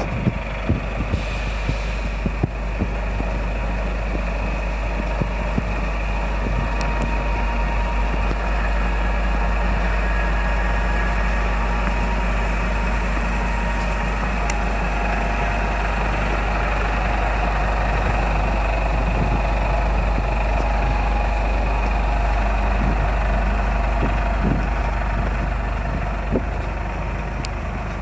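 Scania P340's gas-fuelled five-cylinder engine idling steadily.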